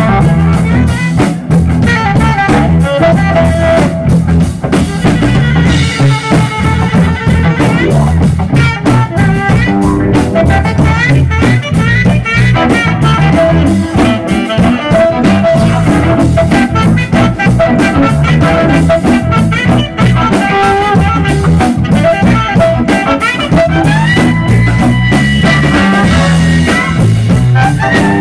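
Live instrumental trio of electric guitar, electric bass and drum kit playing together, the guitar holding long sustained lead notes over a steady drum groove and bass line. About two-thirds of the way through, a guitar note slides upward.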